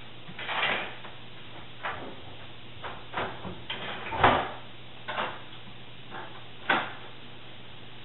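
Irregular knocks and clatters of a dog working at an over-the-range microwave's door with its teeth and pulling it open, about ten in all, the loudest a little past halfway.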